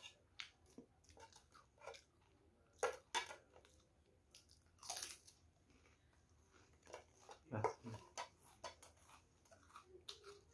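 Krupuk crackers being bitten and chewed: an uneven series of crisp crunches, the loudest about three, five and nearly eight seconds in.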